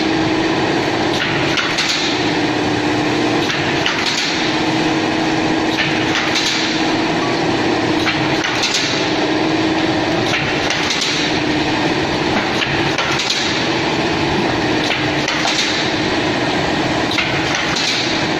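Semi-automatic thermal film laminating machine running, a steady mechanical hum with a clacking surge that repeats about every two seconds.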